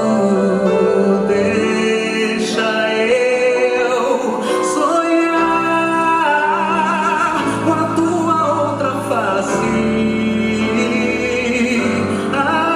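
Live music: a band playing, with long held sung notes that waver in pitch.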